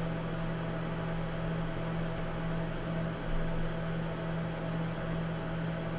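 A steady low hum with a fainter higher tone over an even hiss, unchanging throughout, with no knocks or other events.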